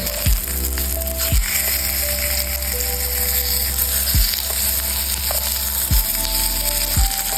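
Pork belly sizzling steadily as it grills. Background music plays over it, with held notes and five deep, falling bass hits.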